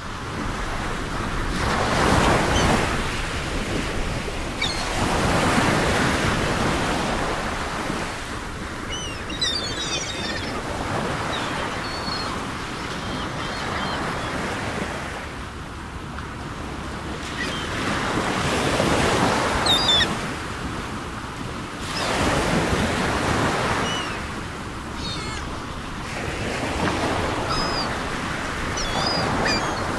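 Ocean surf: waves washing in and falling back, swelling every few seconds, with brief high chirps now and then.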